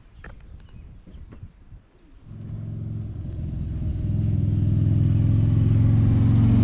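A motorcycle engine approaching, faint at first and coming in about two seconds in, then growing steadily louder as it nears.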